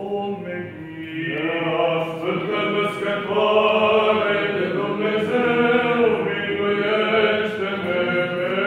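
Eastern Orthodox liturgical chant: voices sing a slow melody in long held notes over a steady low drone, swelling about a second in.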